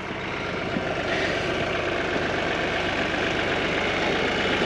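Farm tractor engine idling steadily, a little louder from about a second in.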